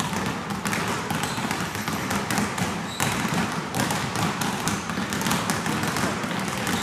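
Several basketballs dribbled at once on a gym floor: a dense, irregular patter of bounces that overlap one another.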